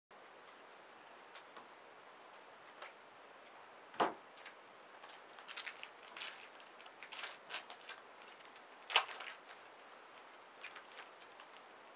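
Shiny trading-card pack wrapper crinkling and tearing open and cards being handled: a scatter of small crackles and clicks, with two louder snaps, one about four seconds in and one about nine seconds in.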